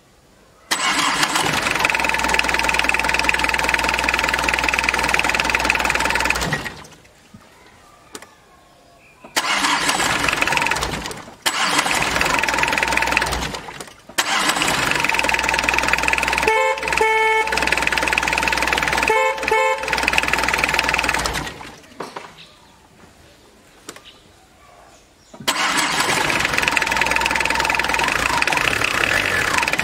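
Tata Indica's four-cylinder diesel engine started and shut off several times, catching quickly each time without long cranking and then running steadily. New heater (glow) plugs have cured its hard starting and misfiring. Two short beeps come in partway through.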